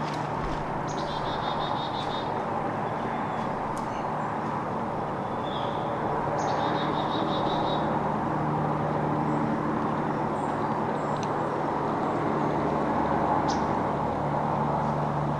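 Steady hum of distant road traffic, with a small bird twice giving a quick series of high chirps, about a second in and again about seven seconds in.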